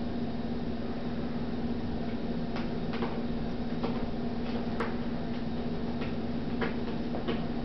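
Small, irregular clicks as a baby feeds himself cereal puffs by hand, over a steady low hum.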